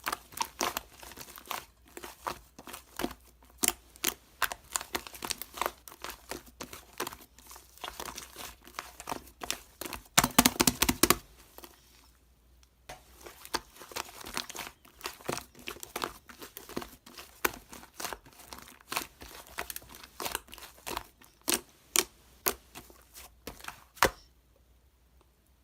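Slime being squished and stretched by hand, a busy run of sticky crackling pops and clicks. A loud dense cluster comes about ten seconds in, then a brief lull, and the pops stop shortly before the end.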